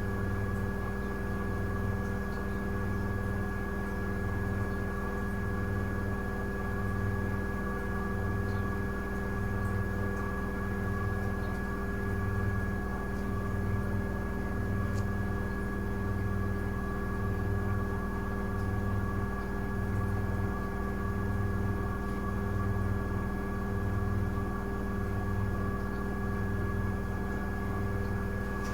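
Miele W1 front-loading washing machine running, with a steady motor whine and a low hum that swells about every second and a half.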